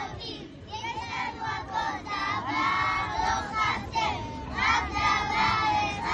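A group of young children singing together in unison, their voices holding and sliding between notes.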